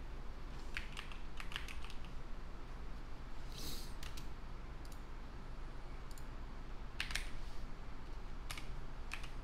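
Typing on a computer keyboard: short, irregular key clicks in scattered groups, with a brief hiss about three and a half seconds in.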